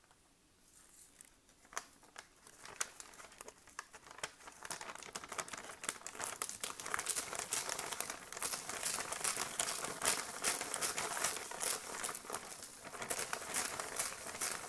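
Green plastic MRE flameless ration heater bag crinkling as it is handled and squeezed. Faint scattered rustles at first, then dense, steady crinkling from a few seconds in.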